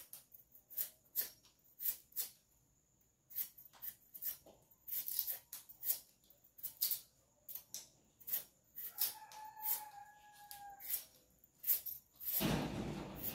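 Knife cutting peeled yam into pieces over a bowl: irregular sharp clicks of the blade through the yam. A steady whine lasts about two seconds past the middle, and a loud rustle comes near the end.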